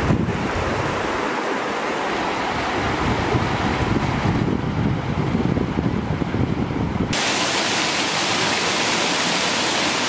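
Hudson River rapids: water rushing steadily over and around boulders, with wind buffeting the microphone. About seven seconds in the sound changes abruptly to a brighter, hissier rush of falling water from a waterfall.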